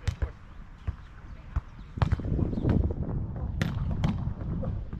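Volleyball struck by players' hands and forearms during a beach volleyball rally: several sharp slaps, the loudest about two seconds in and again a second and a half later. From about two seconds in there is a louder stretch of rough low noise.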